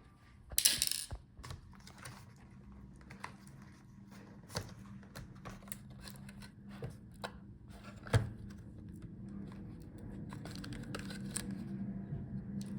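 Scattered clicks, taps and knocks of laptop parts and tools being handled as a laptop motherboard is freed and lifted out, with a short scrape about a second in and a sharp click about eight seconds in. A faint low hum runs underneath, growing toward the end.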